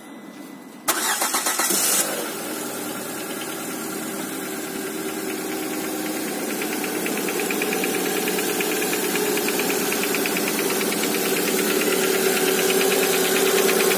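Lada Granta's 1.6-litre 16-valve VAZ-21127 engine cranked by the starter about a second in, catching after about a second and idling cold. A fast, even knock comes in from about six seconds, which the owner takes to be the pistons rattling in the cylinders while the engine is cold.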